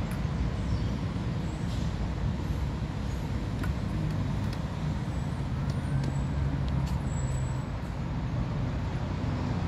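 Steady highway traffic: cars, buses and trucks rumbling past, with a deeper engine drone from a passing heavy vehicle in the middle.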